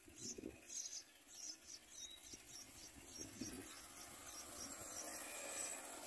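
Yellow-vented bulbul nestlings begging: faint, short, high-pitched chirps repeated unevenly, two or three a second, while they gape for food.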